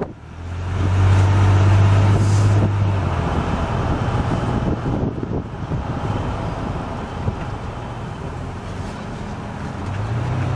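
1999 GMC Sierra's 4.3-liter Vortec V6 running through a Gibson cat-back exhaust while driving, heard from inside the cab. A deep, steady exhaust drone swells loud in the first second, eases off after about three seconds to a quieter run with road noise, and rises again near the end.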